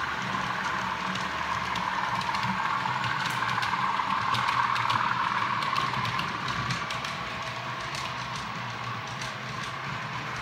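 OO gauge model trains running: a steady motor hum that swells about halfway through, with light clicking of wheels over rail joints and points in the middle seconds.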